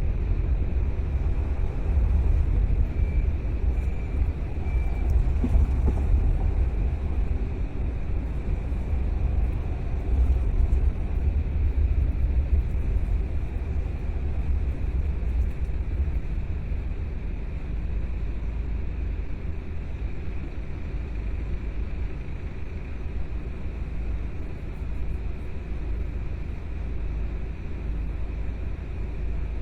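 A car driving along: a steady low rumble of engine and road noise, easing slightly in the second half.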